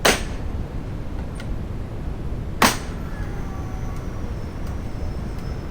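Hyundai HiAN50 air circuit breaker's mechanism being operated by hand: two loud, sharp mechanical clacks about two and a half seconds apart, the second followed by a faint ringing.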